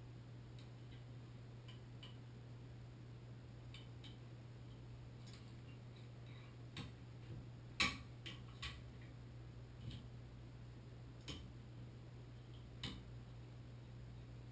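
Scattered small metallic clicks and taps of hand tools working inside a Moen Posi-Temp shower valve body, mostly in the second half, the sharpest about halfway through, over a steady low hum.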